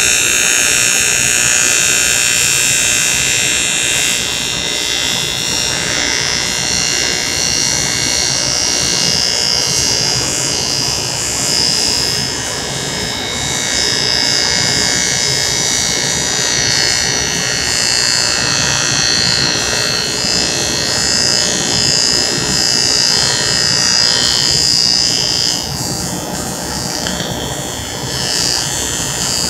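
TIG welding arc burning steadily on a tubing tee joint: a continuous, even hiss carrying a faint high whine.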